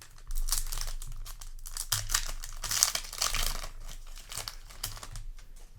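Yu-Gi-Oh! booster pack's foil wrapper crinkling and being torn open, a dense crackle that starts a moment in and dies down near the end.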